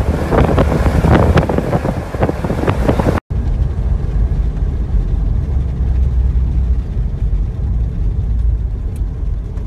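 Strong wind buffeting a phone microphone in gusts. After an abrupt cut about three seconds in, it gives way to a steadier low rumble.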